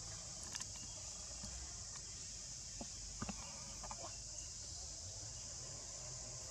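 Steady high-pitched drone of insects in the background, with a few faint short clicks about half a second, three seconds and four seconds in.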